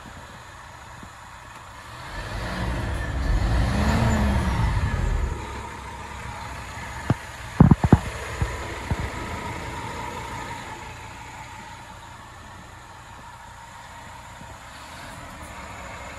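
Scania P230 refuse truck's diesel engine heard from the cab: it swells up in pitch and loudness over about three seconds, drops back, and settles to a steady quiet run. About halfway through comes a quick cluster of sharp knocks, the loudest sounds here.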